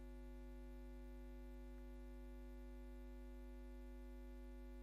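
Near silence apart from a steady, unchanging low electrical hum from the sound system.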